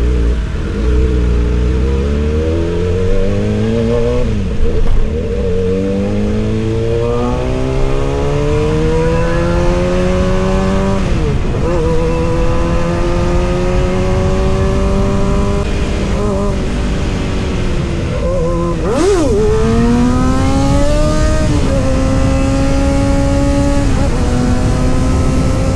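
Kawasaki ZX-6R's inline-four engine pulling through the gears, its pitch climbing steadily in each gear and dipping briefly at each of about five gear changes.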